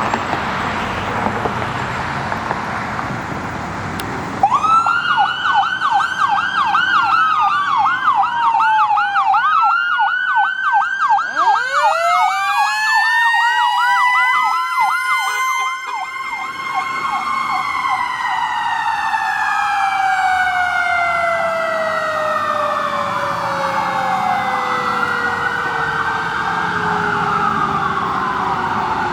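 Fire engine sirens on an emergency response. An electronic siren cuts in about four seconds in and yelps in fast up-and-down sweeps. About eleven seconds in, a mechanical Q siren winds up from a low growl to a high scream alongside an electronic wail. The Q then slowly winds down in pitch through the rest while the wail keeps cycling.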